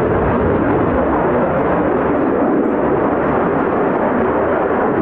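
Jet noise from an F-15E Strike Eagle's twin turbofan engines as the fighter flies past: a steady, even rushing roar with no change in level.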